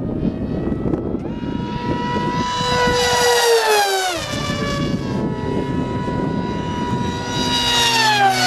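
Electric pusher RC jet with a Turnigy 3648-1450 brushless motor and propeller, whining at speed in two fly-bys. Each pass is a high whine that drops sharply in pitch as the plane goes by, about four seconds in and again near the end.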